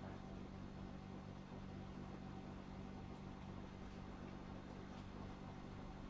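Quiet steady low hum of room tone, even throughout with no distinct events.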